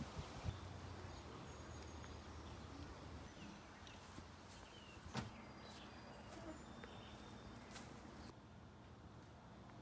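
Faint outdoor ambience with scattered short, high chirps from distant birds and a few sharp clicks, over a low steady hum.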